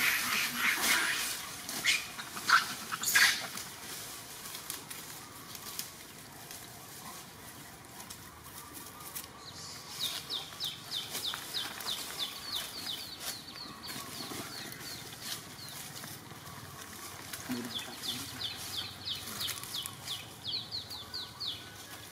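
Dry leaf litter crackling and rustling as macaques move over it, with a few sharp crackles in the first three seconds. Later a quick run of short, high chirps, several a second, comes twice.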